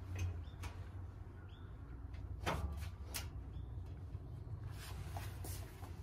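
A bulky comforter being handled and spread over a balcony railing: soft rustling of fabric with a few sharp clicks and knocks, the loudest about two and a half seconds in, over a steady low rumble.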